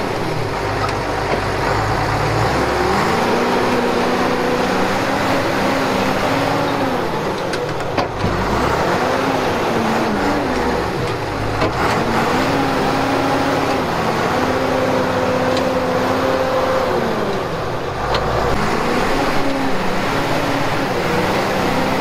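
John Deere skidder's diesel engine revving up under load and dropping back, about five times over, as the machine shoves dirt and stumps with its front blade.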